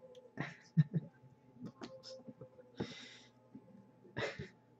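Trading cards and their packaging being handled: short rustles, taps and clicks, with a few brief breathy rushes of noise.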